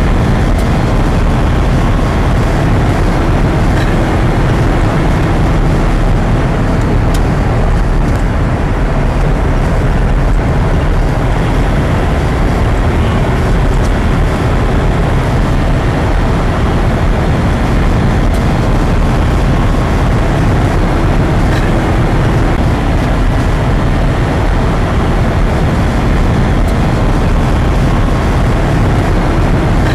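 Steady road noise from a moving car, with tyre and engine rumble heard from inside the cabin.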